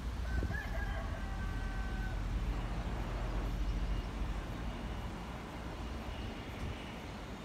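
Low rumble of a diesel-hauled train, slowly fading as it draws away, with a brief thin high tone in the first couple of seconds.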